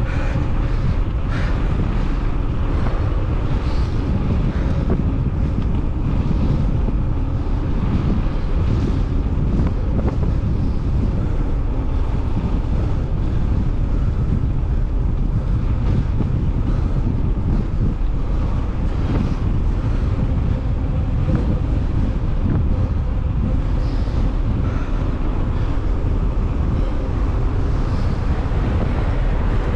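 Wind buffeting the microphone, a steady low rumble with a few faint scattered clicks.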